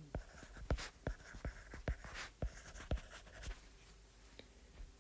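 Stylus handwriting on a tablet screen: a faint run of light, irregular taps and soft scratching as a word is written, thinning out about three and a half seconds in.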